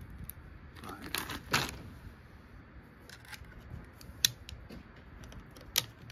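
Clicks and light rattles as a bolt-action .22 LR rifle is loaded: cartridges and magazine handled and the bolt worked. There is a cluster of rattling clicks about a second in, then a few single sharp clicks.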